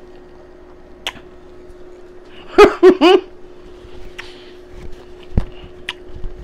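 A woman chewing a mouthful of food hums an appreciative 'mm-mm-mm' three times in quick succession, over a steady low hum. There are a few faint clicks and light rustles as she wipes her mouth with a paper towel.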